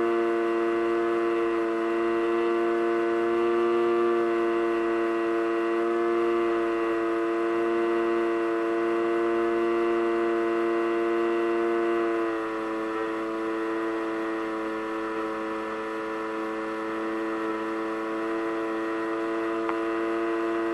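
Electric motor and propeller of an FPV Raptor model plane running at steady cruise throttle, a constant droning hum. It eases slightly lower and quieter about twelve seconds in.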